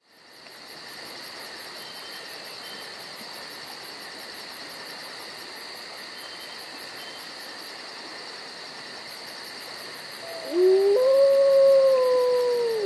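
Night ambience of crickets chirping in a steady, rapid high pulse, fading in at the start. About ten seconds in, a wolf-like howl rises, holds and slowly falls, the loudest sound, with a second howl beginning at the very end.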